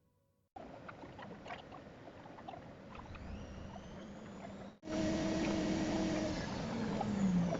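Ansonic washing machine running: a machine hum with small clicks and knocks. It gets louder after a cut a little before five seconds in, where steady motor tones appear and one of them slides down in pitch near the end.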